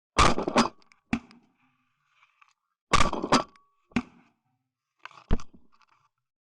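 Shotguns firing at geese over the decoys: about seven loud shots in quick groups, three in the first second or so, three more around three to four seconds in, and a last one near five seconds.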